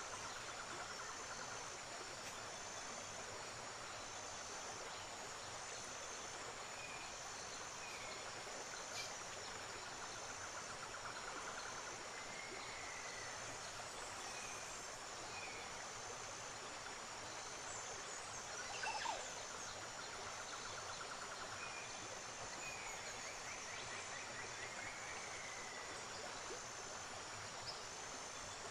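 Steady rush of river water. Over it a high tone pulses evenly, with scattered short chirps and one louder brief call about two-thirds of the way in.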